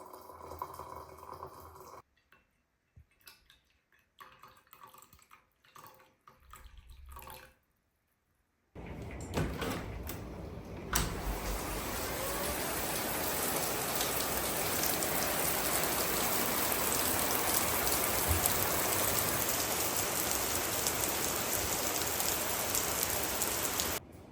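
A few faint, scattered small handling sounds, then running water starts suddenly about nine seconds in and continues as a steady, even rush before stopping abruptly near the end.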